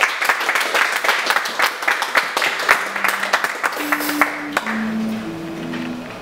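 Small audience applauding, the clapping dying away about four and a half seconds in, while a few held low single notes sound one after another.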